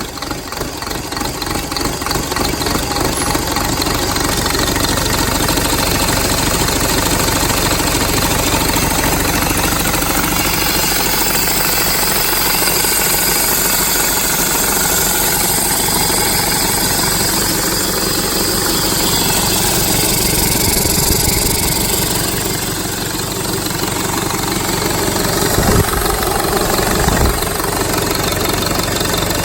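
2005 Mercedes-Benz OM924LA four-cylinder turbodiesel engine running on a test run. It grows louder over the first few seconds, then runs steadily. Two short thumps come near the end. The seller calls the engine a perfect runner.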